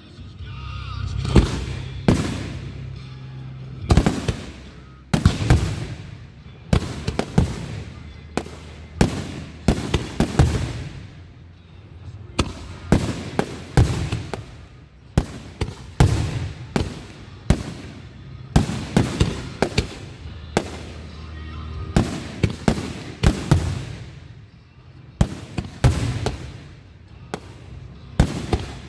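Aerial fireworks shells bursting one after another in quick, irregular succession, each bang trailing off in echo, over music playing underneath.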